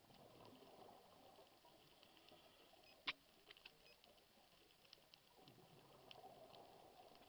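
Faint underwater ambience heard through a camera housing: scattered sharp clicks and crackles, one louder click about three seconds in, over a low muffled rumble that swells near the start and again in the last couple of seconds.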